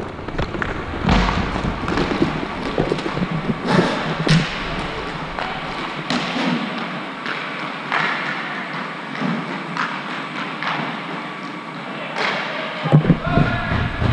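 Scattered thuds and clacks of inline hockey play, sticks and puck knocking and striking, spaced irregularly over steady rink noise.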